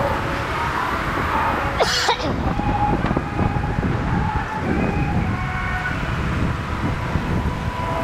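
Wind rumbling on the microphone of a Brompton folding bike riding downhill, with a faint thin squeal that comes and goes and a short sharp hiss about two seconds in.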